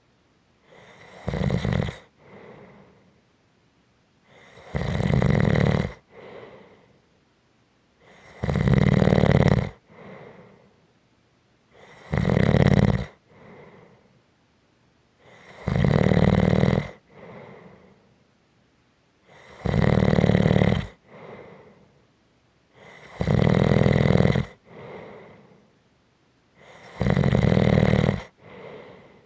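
Someone snoring steadily. Each loud, rasping snore lasts about a second and is followed by a fainter breath, repeating about every four seconds.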